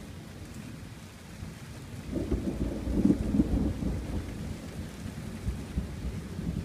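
Thunder rumbling: a deep rumble swells about two seconds in, peaks a second later and keeps rolling. Light rain hisses underneath.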